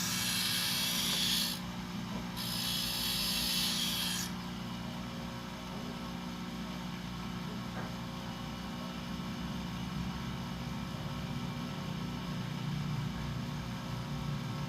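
Bench grinder wheel grinding the edge of a thickness planer knife: a harsh grinding hiss in two passes with a short break about one and a half seconds in, stopping about four seconds in. After that the grinder's steady low hum continues.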